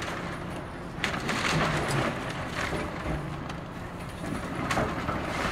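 Excavator tearing apart a building's wooden roof trusses and walls: crunching and cracking of timber and debris, loudest from about one to two seconds in and again near the end, over the steady running of the machine's engine.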